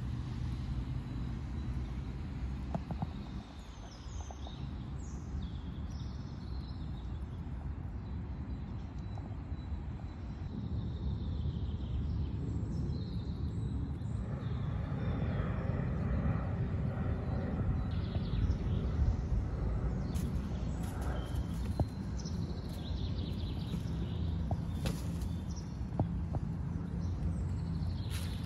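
Outdoor ambience: a steady low rumble, growing a little louder about halfway through, with small birds chirping now and then.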